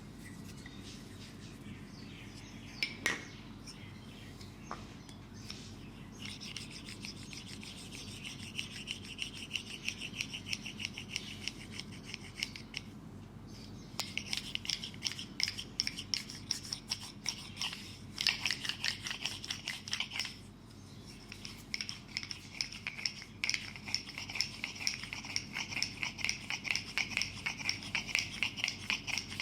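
Fast, rhythmic rubbing or scraping strokes, several a second, in two long runs with a short pause between them. A single sharp click comes about three seconds in.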